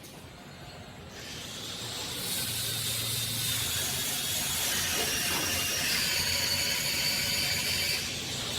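Machinery of an automated door-frame welding line: a steady hiss with a thin high whine that comes in about a second in and grows louder, with faint mechanical clatter.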